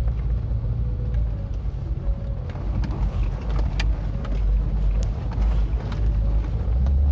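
Car on the move: a steady low rumble of engine and road noise, with a few sharp clicks, the clearest about four seconds in.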